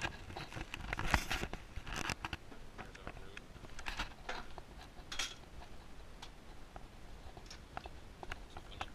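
Scattered light clicks and knocks, one or two a second, over a low steady room hum: handling noise and small bumps as a handheld camera is carried through a room.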